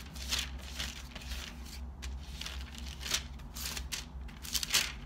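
Bible pages rustling as they are leafed through, a string of short papery rustles and flicks.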